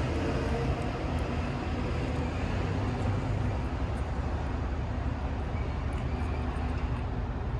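Steady low rumble of urban traffic and vehicle engine noise.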